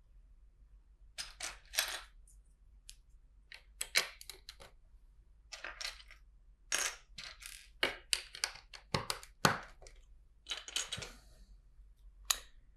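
Vintage LEGO plastic bricks clicking and clattering in irregular bursts as loose pieces are picked through and pressed together.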